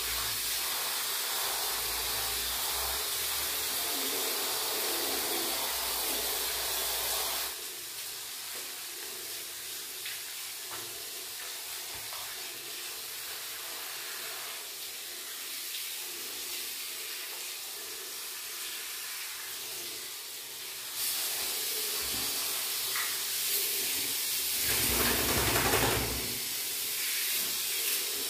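Handheld shower head spraying water over a wet husky's coat in a small tiled shower, a steady rushing hiss. The spray drops quieter about a quarter of the way in, gets louder again about two-thirds in, and swells loudest for a moment near the end.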